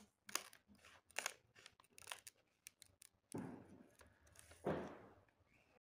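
Scissors cutting open a plastic candy packet: a run of short sharp snips, then two longer, louder crinkling cuts through the wrapper in the second half.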